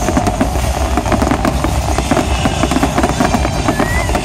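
Large aerial fireworks display: a dense, continuous barrage of shell bursts and crackling over a heavy rumble, with a short whistle near the end.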